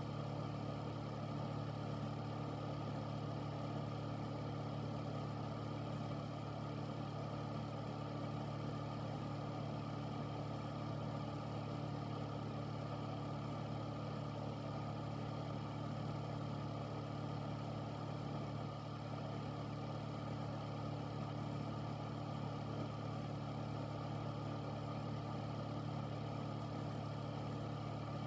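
Air filter's fan running steadily: an even low hum with a whoosh of moving air, unchanging throughout.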